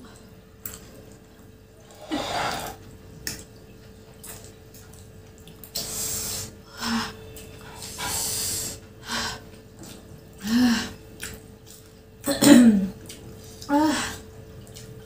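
Close-miked mukbang eating sounds from spicy chow mein: several noisy in-drawn slurps and sniffs, each under a second, between short low hums and grunts.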